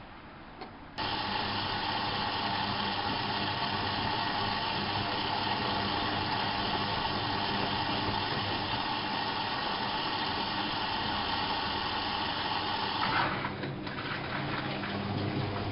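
Whirlpool AWO 5346 front-loading washing machine running, with a low steady hum. A loud, even hissing starts abruptly about a second in and cuts off near the end.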